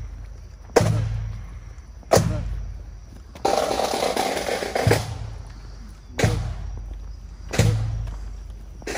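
A marching band's bass drum beating a slow, steady cadence, about one heavy stroke every second and a half, each leaving a low boom. Between two of the strokes, a little over halfway through, a snare drum rolls for about a second and a half.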